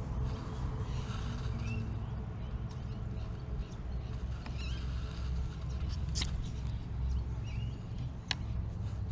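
Open-air background of a steady low rumble with a few short bird chirps scattered through it, and two sharp clicks in the second half.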